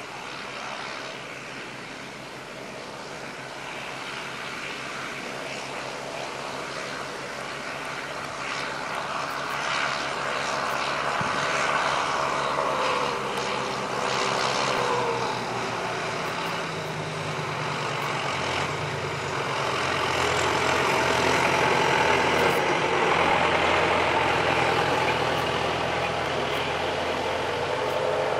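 Maize-harvest machinery running: a forage harvester chopping maize and a tractor pulling a silage trailer alongside it. The sound grows steadily louder as they come close, and is loudest about three-quarters of the way through.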